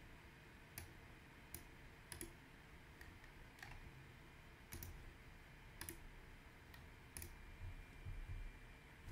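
Computer mouse clicking, seven or eight sharp single clicks spread out about a second apart, over a faint steady room hum.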